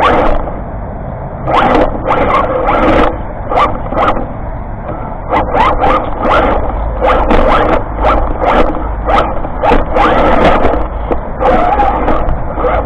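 Radio-controlled car driving over rocks: its motor whines in many short bursts of throttle, with sharp knocks of the wheels and chassis against the stones.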